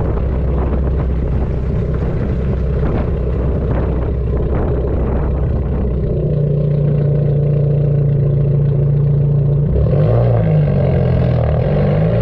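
Dodge Neon four-cylinder exhaust drone under way, picked up at the rear bumper with road noise, its note dull. A steady low pitch settles about halfway through, and near the end the pitch rises and falls as the revs change.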